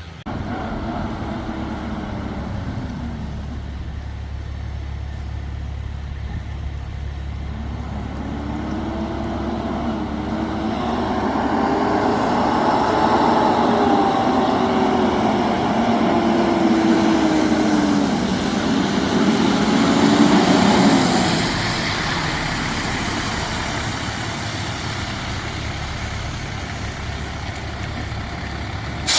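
Large fire truck going by, a steady low rumble with its engine note rising and falling again and again. The sound builds to its loudest about twenty seconds in, then fades.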